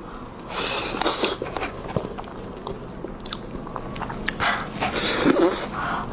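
Wet mouth sounds of someone biting into and chewing soft braised pig brain, with two louder noisy bursts of eating, one about half a second in and one about four and a half seconds in, and small smacking clicks between.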